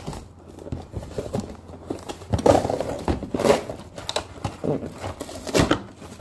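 Toy packaging being handled and opened: plastic and cardboard rustling and crinkling in irregular bursts, loudest about two and a half, three and a half and five and a half seconds in.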